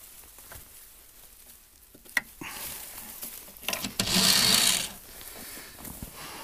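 Dry swale grass rustling and being rubbed by hands, with a sharp click about two seconds in and a louder burst of rustling about four seconds in.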